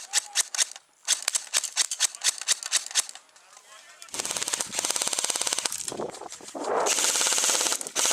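Airsoft guns firing: a quick string of rapid shots, then after a brief lull, long full-auto bursts from about four seconds in, loudest near the end.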